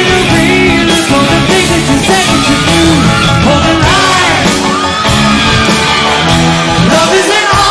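A rock band playing live, with a singer's voice gliding and shouting over loud, sustained guitars, bass and drums.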